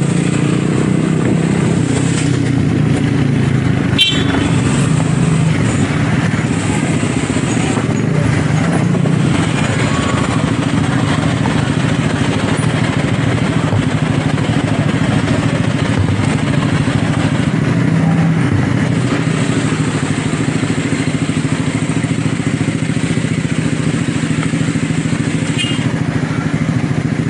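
Motorcycle engine running steadily at low speed in city traffic, with one sharp click about four seconds in.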